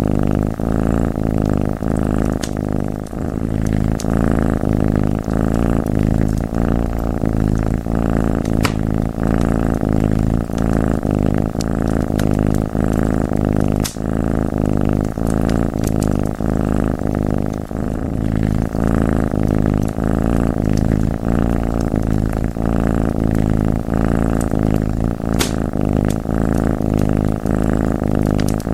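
A cat purring loudly and steadily, with a few sharp crackles and pops from a wood fire scattered through it.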